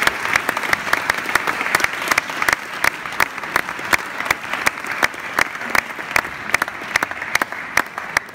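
Audience applauding, dense irregular clapping with a few single claps close by standing out, slowly thinning out.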